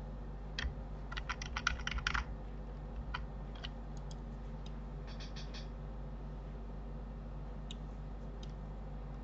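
Computer keyboard and mouse clicks from someone working at a computer: a quick run of keystrokes about a second in, a few more around three to five seconds in, then scattered single clicks. Under them runs a steady low electrical hum.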